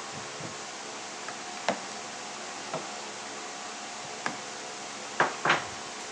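Scattered metal clicks and knocks of a wrench and socket working the 7/16 bar nut off a chainsaw's bar, about five separate strikes with the loudest pair near the end, over a steady hiss.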